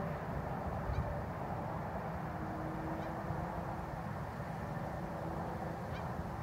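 Steady outdoor background noise: a low rumble and hiss, with a faint hum running under it and a few faint ticks.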